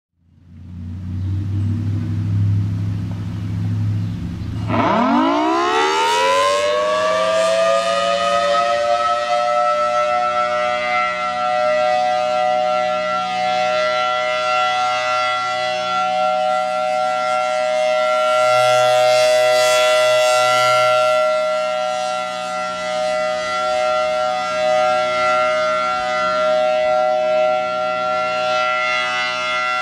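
Federal Signal Thunderbolt 1003 outdoor warning siren sounding its steady full-alert tone, very loud. A low hum is heard first; about five seconds in the pitch winds up steeply and settles into a steady high wail. The wail swells and eases as the rotating horn turns.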